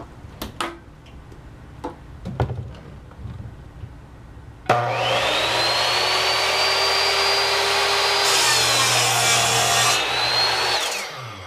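Delta Homecraft 10-inch compound miter saw: a few knocks as it is readied, then the motor starts suddenly about four and a half seconds in and runs with a steady high whine. The blade cuts through a piece of wood for about two seconds. The trigger is released and the blade winds down quickly on its brake, the whine falling in pitch.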